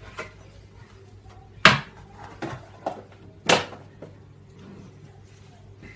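Knocks of kitchen work at a counter: two loud, sharp knocks about two seconds apart, with a few lighter knocks between them.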